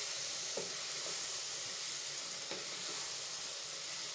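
Chicken pieces and onions sizzling in oil and masala in a nonstick wok, stirred with a wooden spatula, with a couple of short scrapes of the spatula against the pan.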